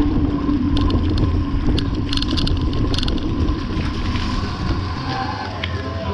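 Wind buffeting the microphone of a camera on a moving bicycle, over tyres hissing on wet pavement. A few sharp clicks and rattles from the bike come between about one and three seconds in.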